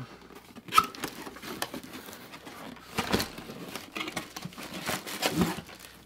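Cardboard and paper packaging rustling and crinkling as a box is unpacked, with scattered light taps and a sharp click about a second in.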